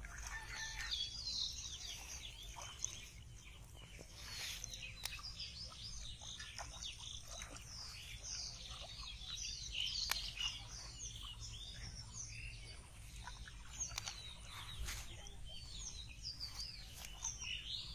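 Many small birds chirping and twittering together in a dense, unbroken chorus of quick high calls, with a few brief sharp clicks.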